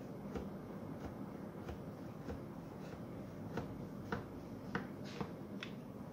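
A knife cutting through a firmly set chocolate layer in a glass baking dish: a string of sharp clicks, about two a second, louder in the second half.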